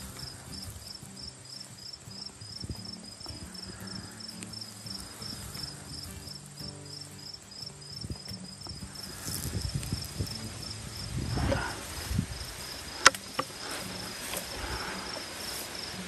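Insects chirping steadily in a high, even pulse about three times a second. A sharp click comes about thirteen seconds in, with some low rumbling handling noise just before it.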